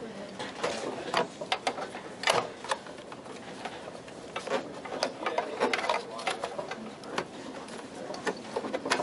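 Irregular clicks, knocks and rattles of hands pulling ribbon cables and handling parts inside an old desktop computer's metal case.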